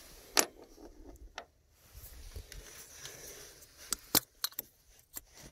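Scattered sharp clicks and light metallic clinks from hands handling tools and engine parts while removing an ignition coil pack, the loudest about half a second in and a close pair about four seconds in.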